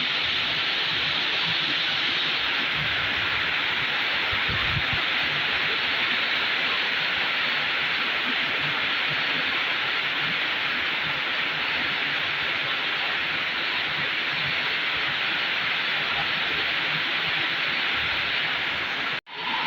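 Rain falling steadily, an even hiss with no let-up; the sound cuts out for an instant near the end.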